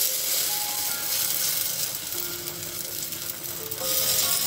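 Semolina cheela batter sizzling on a hot oiled tawa as a spoon spreads it out, with soft background music of a few held notes.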